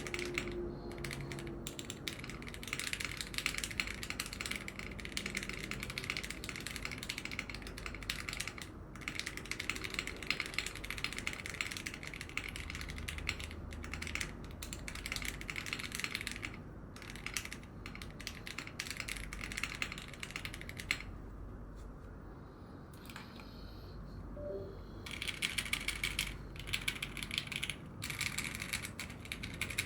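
Fast typing on a mechanical keyboard fitted with PBT keycaps, a dense run of clacking keystrokes. There is a lull of about four seconds late on, and then the typing picks up again.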